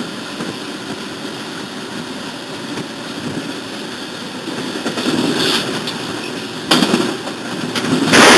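Freight locomotive running at speed, with the steady rumble of wheels on rail heard from the front of the locomotive. It grows louder about five seconds in, a few sharp bangs follow about seven seconds in, and near the end it breaks into a sudden loud crash as it strikes an oncoming locomotive head-on.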